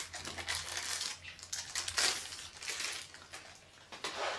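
Clear plastic packaging crinkling and crackling as the MSI Pen's box is handled and taken out of its bag, with irregular crackles that are loudest about halfway through.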